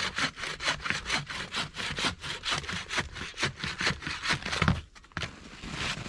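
Hand bow saw cutting through a fallen tree trunk, sawing off its butt end, in even back-and-forth strokes about three a second. A thump about four and a half seconds in, after which the sawing stops.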